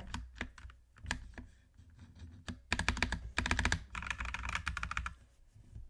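Keystrokes on an inexpensive mechanical keyboard: a few separate clicks at first, then a quick run of typing from just before the halfway point, stopping about a second before the end.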